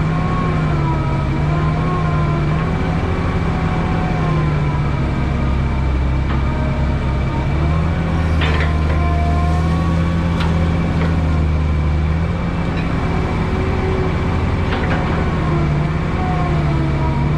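Heavy diesel earthmoving machine running under load, the engine note rising and falling with a wavering hydraulic whine over it. A few short metallic clanks.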